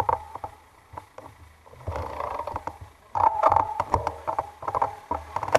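Street traffic at an intersection: vehicles running close by, with a low rumble that swells about two seconds in and again near the end.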